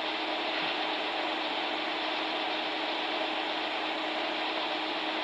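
Steady hiss of the recording's background noise with a faint low hum underneath; no speech.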